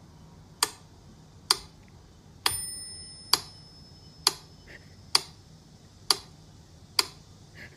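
Steady clock-like ticking, about one sharp tick a second, with a single short bell-like ding about two and a half seconds in.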